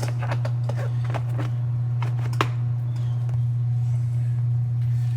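Scattered clicks and knocks of hands fitting the roller bag's interior piece back into place, the sharpest about two and a half seconds in, over a steady low hum.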